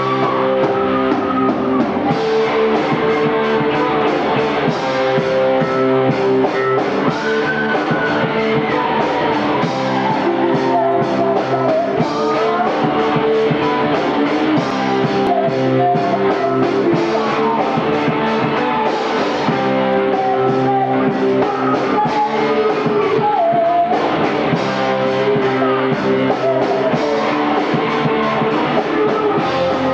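Rock band playing live: electric guitar, bass and drums with a steady beat, and a lead line that bends up and down in pitch over the chords.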